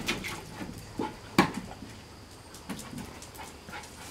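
Puppies at play: short whimpers and yips with the odd sharp knock, the loudest about a second and a half in.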